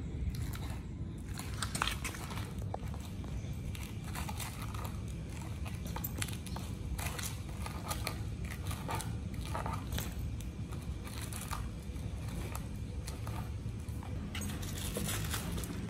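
American pit bull terrier gnawing and tearing at the fibrous husk of a whole young coconut: scattered crackling and crunching over a steady low rumble.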